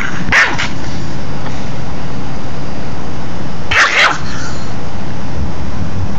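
A 5.5-pound Pomeranian growling steadily while guarding food, with a short, sharp bark about half a second in and a quick pair of barks about four seconds in.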